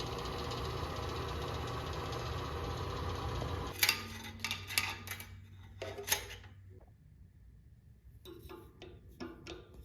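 Restored 1950s Delta Homecraft 10-inch band saw running with a steady motor hum, then switched off about four seconds in and spinning down over the next few seconds. A few sharp knocks sound as it slows, and faint clicks follow near the end.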